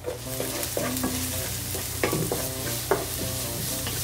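Chopped onion sizzling in hot oil in a non-stick frying pan, stirred with a wooden spatula that scrapes across the pan in repeated strokes.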